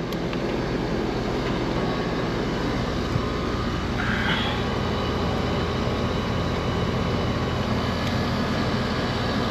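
Outdoor air-conditioner condensing unit running steadily: compressor hum under the whoosh of the condenser fan, the system cooling normally after the compressor terminals were cleaned. A brief faint rustle about four seconds in.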